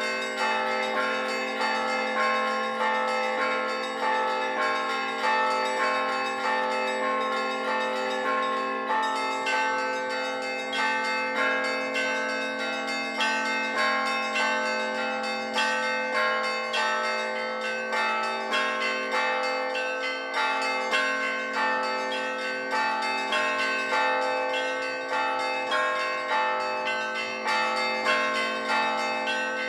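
Russian Orthodox church bells ringing a peal: many bells struck in a steady, repeating rhythmic pattern, the smaller bells' quick strikes over the lasting hum of a larger bell.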